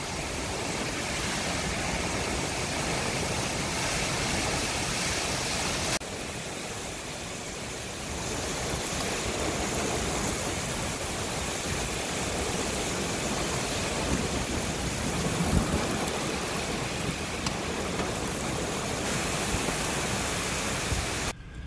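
Heavy thunderstorm rain driven by storm winds, a steady rushing noise of downpour and gusts on the microphone, dipping briefly about six seconds in.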